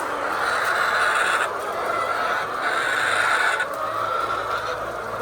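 A flock of hens clucking and cackling together in a continuous din, swelling louder twice for about a second each.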